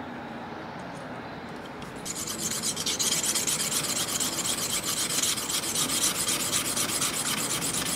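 A steel blade from a pair of hand-forged Japanese tailor's shears being sharpened on a wet whetstone: a gritty scraping in rapid back-and-forth strokes that starts about two seconds in. It is a touch-up resharpening of the edge to remove the small pits along the edge line that leave cloth uncut.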